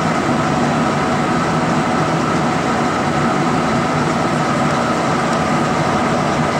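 Met One CNC-1104 condensation nucleus counter running while it counts particles: a steady mechanical hum and hiss with a thin, even whine.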